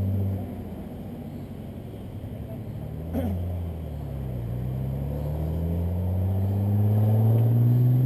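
Historic car engine accelerating, its pitch climbing steadily and the sound growing louder over the last few seconds as the car approaches. A brief sharp click comes about three seconds in.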